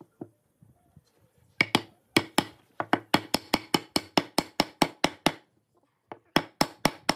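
Wooden block hammering a pine crosspiece down into a notched pine leg joint: a fast run of sharp wood-on-wood knocks, about five a second, then a short pause and a few more knocks near the end.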